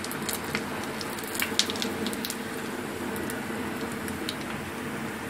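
Spring rolls deep-frying in hot oil in a wok: a steady sizzle with scattered pops and crackles as the rolls are lifted out with a wire skimmer.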